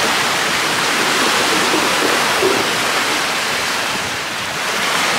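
Choppy, wind-driven lake waves breaking and washing up onto the shore, a steady rushing wash that eases slightly about four seconds in.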